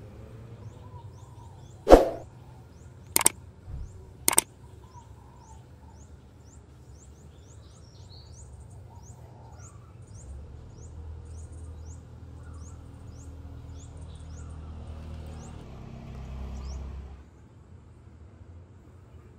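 Three sharp knocks about a second apart near the start. Under them and after them, a small bird chirps in short, high, repeated notes, about two a second. A low hum builds up in the second half and cuts off near the end.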